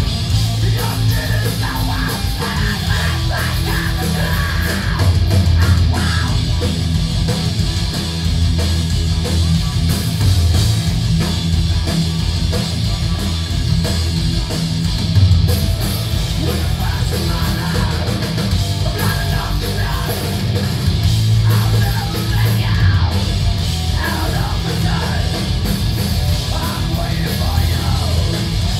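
Heavy rock band playing loud: electric guitars and drums, with a strong, steady low end.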